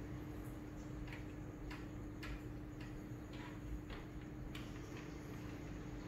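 A string of light, irregularly spaced clicks and taps from plastic aquarium fittings being handled on a glass tank, over a steady hum from the aquarium's running pump.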